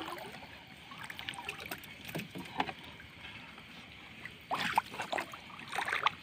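Fishing net being hauled in over the side of a small boat, water dripping and splashing off the mesh in irregular bursts.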